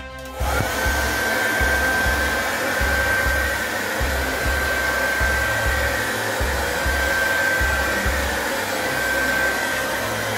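Handheld hair dryer switched on about half a second in and running steadily at maximum heat and power: a rush of air with a steady high whine from its motor.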